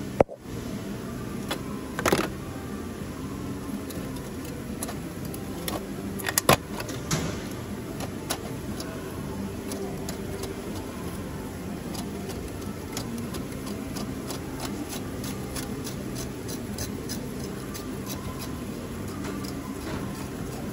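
Scattered metallic clicks and knocks as a Peugeot 208's catalytic converter is worked by hand on its exhaust mounting studs, with a few louder knocks in the first seven seconds, then many small ticks. A steady low hum runs underneath.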